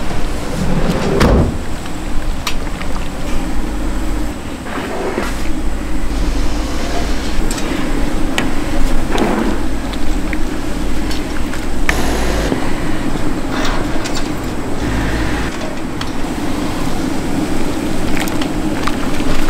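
Food-stall kitchen noise: a steady hum under frequent short clinks and knocks, such as bowls, ladles and pots being handled, with patches of low rumble.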